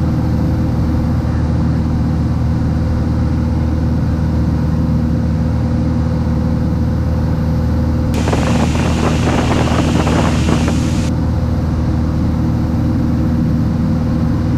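Cessna 182's piston engine and propeller droning steadily in level cruise, heard through the headset audio feed. A little past the middle, a rough hiss rises over it for about three seconds, then stops.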